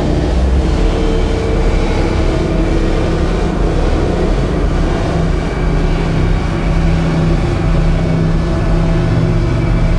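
Live experimental drone-noise music: a dense, loud low rumble under layered sustained tones. A low held tone grows stronger about five seconds in.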